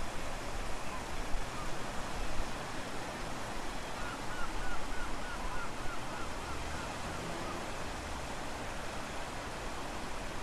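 Steady rushing water noise, an even hiss with no pitch. A run of about a dozen faint short chirps, about three a second, comes between about four and seven seconds in.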